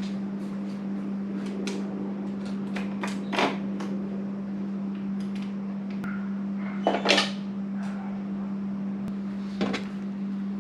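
Scattered clicks and knocks of a motorcycle mirror being handled and fitted back onto the bike, with three louder clunks: about a third of the way in, two-thirds in, and near the end. A steady low hum runs underneath.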